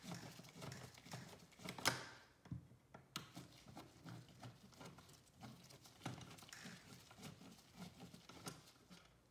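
Screwdriver clicking and scraping against the metal cutter discs of a paper shredder's cutting assembly while a bar is pried free; faint scattered clicks, the sharpest about two seconds in.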